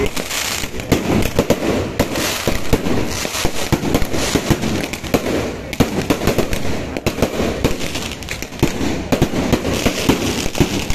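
A dense, continuous volley of fireworks and firecrackers going off together: many rapid bangs and cracks overlapping without a break.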